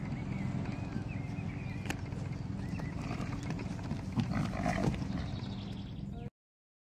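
Steady low wind rumble on the microphone, with a short horse call about four and a half seconds in. The sound cuts off abruptly shortly before the end.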